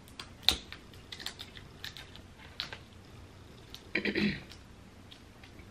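Utensil clicking and scraping against a crab leg shell while picking out the meat: a string of sharp, scattered clicks, the loudest about half a second in, then a short, louder crackling clatter at about four seconds.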